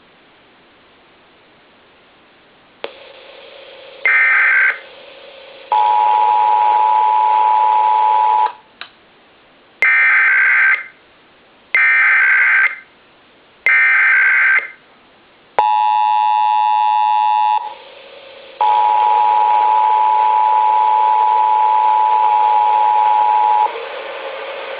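Emergency Alert System tones relayed through a Sage ENDEC over a hissy radio feed: short buzzy SAME digital header bursts, three in a row about a second apart, and the steady two-tone attention signal (853 and 960 Hz together). The attention signal sounds twice, the second time for about five seconds, and a brief harsher multi-tone stretch comes between them.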